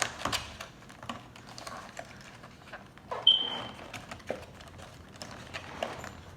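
Toy packaging being opened and handled: scattered light clicks, taps and rustling of plastic and cardboard. A short, sharp high-pitched squeak stands out about three seconds in.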